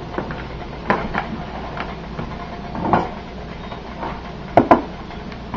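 A glass bowl with a metal spoon in it being handled and set down on a wooden counter: scattered light knocks and clinks, with two sharper knocks close together near the end, over a steady low background hum.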